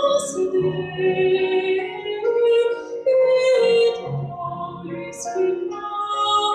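Music: a female voice singing held, sustained notes over instrumental accompaniment.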